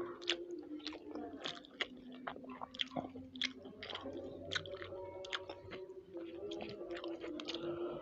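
Close-miked chewing of a grilled chicken and rice meal, with frequent wet mouth clicks and smacks at an irregular pace.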